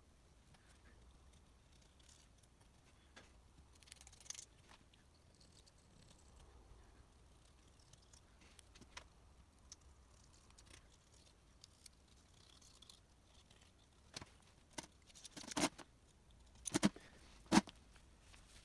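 Scattered light clicks and knocks of engine parts and tools being handled at a workbench, with a few louder sharp clacks near the end.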